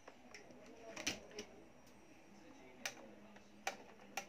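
Faint handling of motorcycle wiring by hand, with a few sharp light clicks and soft rustles as the wire is pushed and routed; the clicks fall about a second in, around three seconds, and near the end.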